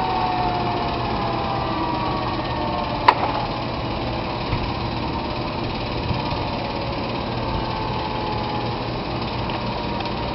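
Federal Signal Thunderbolt 1003 siren winding down at the end of its signal, its tone falling away over the first second or two, leaving a steady mechanical hum. A single sharp click about three seconds in.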